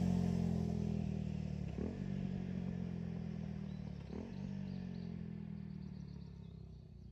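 KTM 390 Duke's single-cylinder engine through an unbaffled LeoVince GP Corsa Evo slip-on exhaust, decelerating through downshifts. There are two brief rev blips, about two and four seconds in, while the exhaust note fades steadily.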